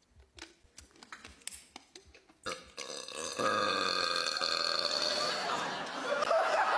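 A person letting out one long, drawn-out burp at a fairly steady pitch, starting about three seconds in and still going at the end, brought up by gulping fizzy pop.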